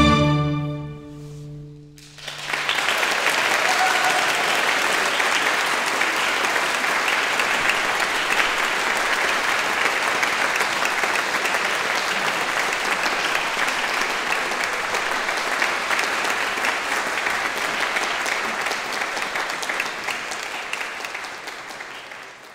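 The last chord of a string ensemble dies away over about two seconds, then an audience breaks into steady applause that fades out near the end.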